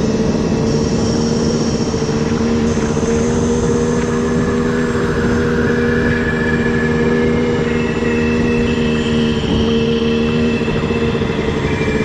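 Honda CR250R dirt bike's two-stroke single-cylinder engine running at a steady, even pitch while cruising.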